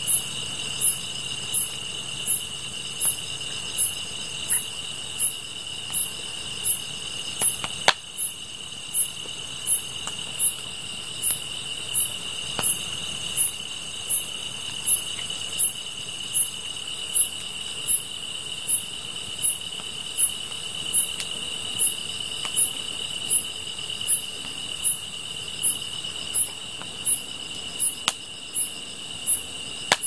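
A chorus of night grass insects (crickets and katydids): one steady high trill runs without a break, and over it a very high chirp repeats evenly, about every three-quarters of a second.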